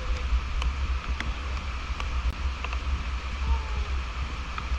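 Steady rush of a waterfall and stream in heavy monsoon flow, with wind buffeting the microphone in uneven low rumbles.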